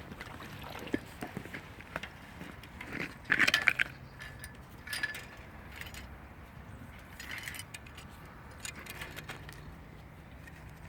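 Ice cracking and crunching: scattered sharp cracks and crackles, with a louder burst of several cracks about three and a half seconds in.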